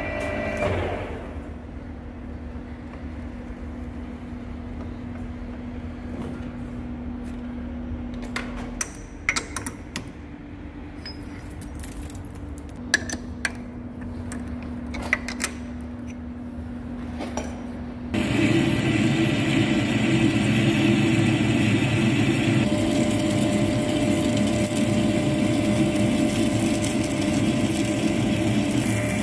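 Large centre lathe turning a 4-inch chromed hydraulic cylinder rod, running with a steady hum and scattered clicks. About 18 seconds in, a 4 mm parting tool is cutting into the rod and the sound gets much louder: a dense cutting noise with a thin high whine.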